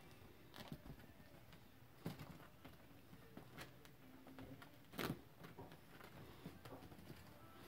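Kitten scrambling among bed pillows and bedding: a quiet room with a few soft taps and rustles, the loudest about five seconds in.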